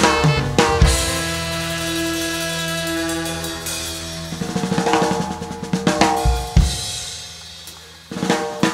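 Live reggae band holding a sustained chord while the drummer plays a rolling snare and cymbal build-up, ending on a big hit that rings out and fades; near the end the full band kicks into the next song.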